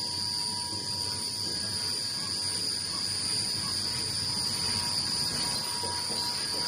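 Car chassis and road noise while driving: a steady low rumble with hiss and a constant thin high-pitched whine over it.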